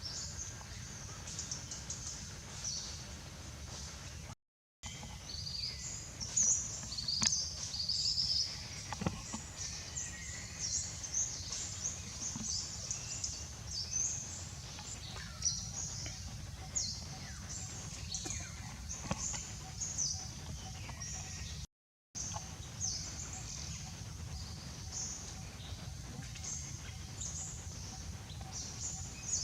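Small birds chirping and trilling in many short, high calls over a steady low outdoor rumble; the sound cuts out briefly twice.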